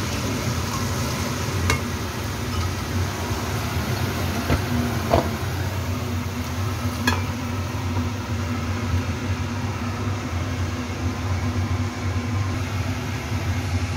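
Shimeji mushrooms with garlic and spring onion sizzling faintly in a nonstick frying pan, over a steady low hum. Three sharp clinks come as the spatula scrapes the food out of the pan onto a plate.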